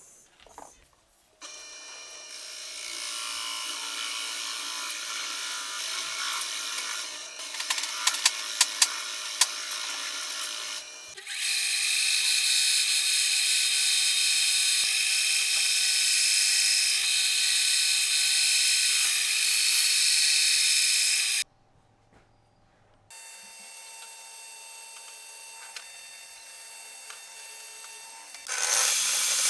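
Electric power tools working wood in a series of cut-together takes: a steady running tool with scattered sharp clicks, then a louder steady whine, a brief silence, and a quieter tool that gets louder again near the end.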